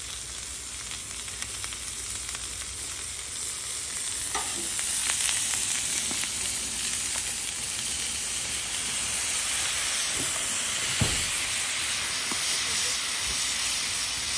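Onions frying on a hot Blackstone flat-top griddle, sizzling steadily after butter and soy sauce go on, growing louder about four seconds in. A few sharp metal knocks from a spatula.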